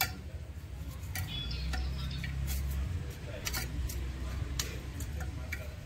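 Small hand trowel working dry potting soil in a tub: irregular sharp clicks and scrapes, roughly one a second, over a low rumble.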